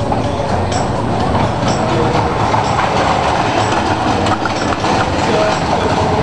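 Roller coaster car running along its steel tubular track: a steady rolling rumble and rattle of the wheels.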